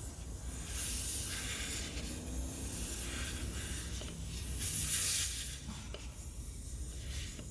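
Air hissing out of an ATV tire through the open valve stem with the valve core removed, as the tire deflates. The hiss swells louder and higher about a second in and again about five seconds in.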